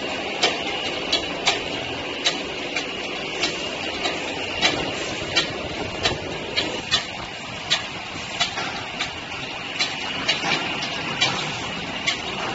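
Plastic sheet extrusion line running: a steady machine hum and hiss with a thin high whine, broken by sharp, irregular clicks about one to two times a second.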